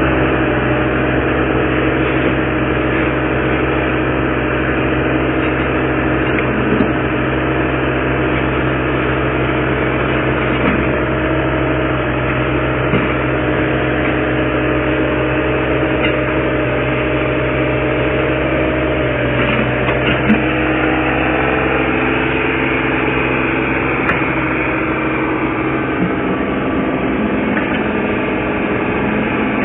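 Caterpillar 303CR mini excavator's diesel engine running at a steady pitch under hydraulic load as the machine lowers itself off a flatbed truck, with a few light knocks scattered through.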